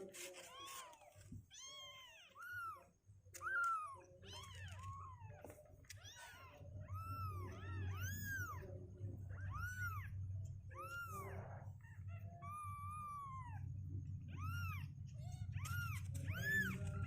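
Two-week-old kittens mewing again and again: short, high, arching cries, one after another. A low steady buzz sits beneath the mews from about four seconds in.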